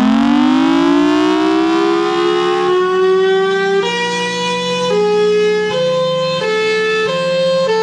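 Federal Signal Thunderbolt 1003 tornado siren winding up, its pitch rising and levelling off, then about four seconds in switching to its hi-lo signal, alternating between two tones roughly once a second over a steady lower tone.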